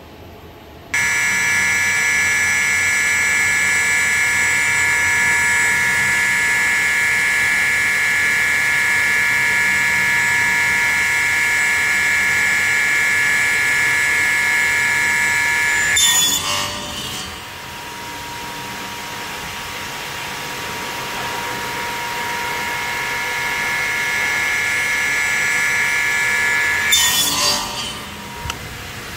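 Radial arm saw running with a steady high whine, its blade cutting through plywood twice, about halfway through and near the end, each cut a brief burst of noise. After the first cut the whine drops and slowly builds back up.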